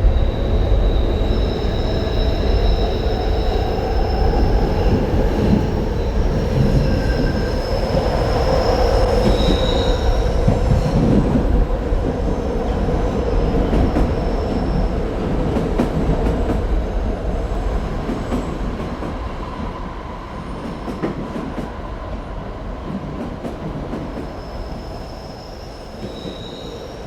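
A heavy, continuous rumble with high, drawn-out metallic squeals over it, like steel wheels grinding on rails. The squeals come and go through the first half and return near the end.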